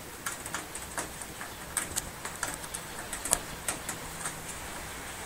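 A scatter of light, irregular plastic clicks and ticks from front-panel connector plugs and their thin leads being handled and pulled off the motherboard's pin header.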